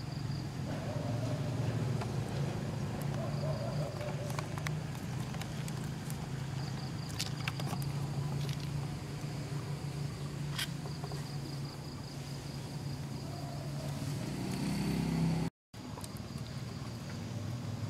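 Outdoor ambience dominated by the steady low hum of an engine running, with a high, rapidly pulsing insect-like chirp coming and going above it and a few sharp clicks. The sound cuts out for a moment near the end.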